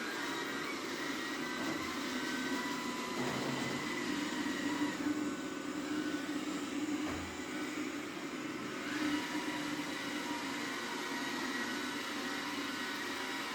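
Roborock Q7 Max robot vacuum running: a steady whir with a faint whine.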